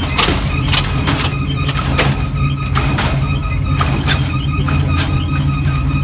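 Lowrider car's hydraulic suspension at work: a steady pump whine and repeated sharp clanks as the front end is raised and dropped, over a steady low rumble.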